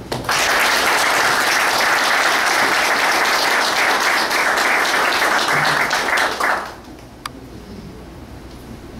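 Audience applauding, starting right away and lasting about six and a half seconds before fading out quickly.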